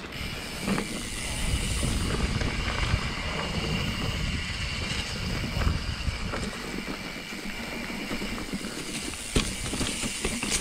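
Mountain bike rolling along a dirt trail: steady tyre and wind rumble with drivetrain and frame rattle, and a couple of sharp knocks from bumps, about a second in and near the end.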